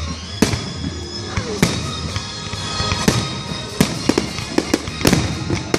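Aerial firework shells bursting: a string of sharp bangs at uneven intervals, coming faster near the end.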